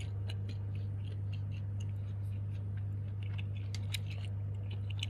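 A fork working the fried prawn fritters and loh bak in their paper and plastic wrapping makes light, irregular clicks and ticks, several a second. Under it runs a steady low hum.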